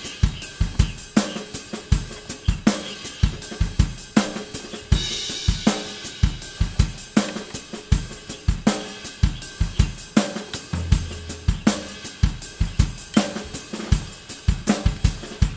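Background music with a steady drum-kit beat: kick, snare, hi-hat and cymbals.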